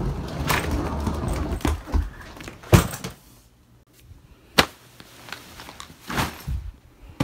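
Handling noise of a suitcase and clothes: fabric rustling for about three seconds, then quieter, with a sharp knock about three seconds in, another just over four and a half seconds in, and a short rustle near the end.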